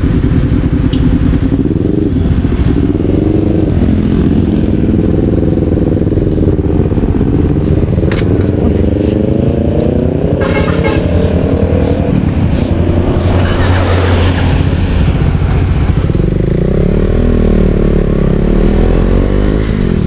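Motorcycle engine running, its pitch rising and falling repeatedly with the throttle, steadying lower near the end. A few short clicks are heard in between.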